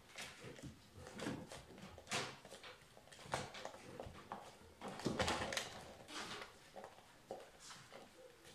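German shepherd puppies scuffling together on a wooden plank floor: an irregular patter of claws scrabbling and paws tapping on the boards, in short scratchy bursts.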